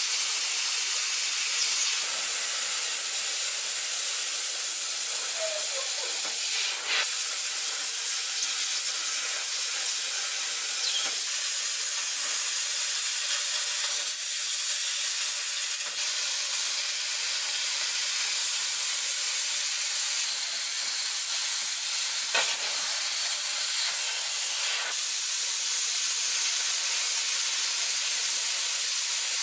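Plasma cutter cutting through rusted sheet steel: a steady, unbroken hiss of the arc and air jet, with a few faint crackles.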